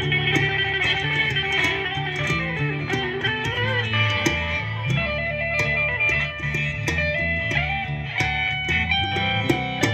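Live band playing an instrumental passage through outdoor PA speakers: a guitar lead with notes bending up and down, over a steady bass line and a regular beat.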